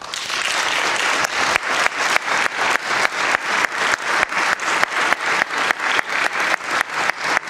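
Audience applauding. It breaks out suddenly and soon settles into rhythmic clapping in unison, about three claps a second.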